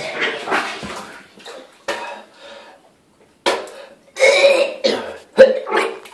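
A man retching over a toilet in several loud heaves starting about three and a half seconds in, with splashing into the water in the bowl. Quieter rustling and shuffling before the heaves.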